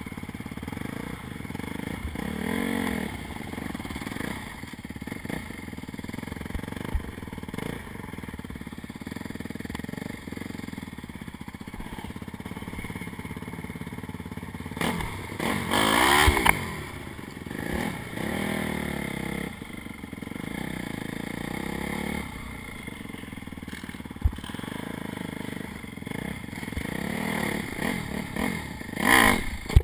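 Dirt bike engine heard from on board, running over rough trail and revving up and down several times. The biggest rev comes about halfway through. A couple of sharp knocks come later, one near the end.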